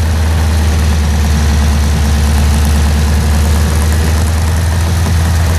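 Engine on a test stand running at a steady idle, a loud, even hum.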